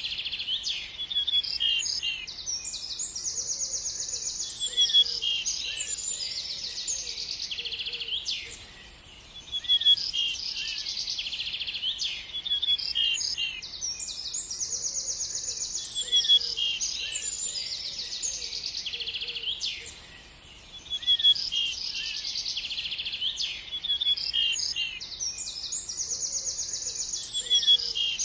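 Several small birds chirping and trilling in quick, high-pitched phrases. The same stretch of calls repeats about every 11 to 12 seconds, with brief lulls about 9 and 20 seconds in.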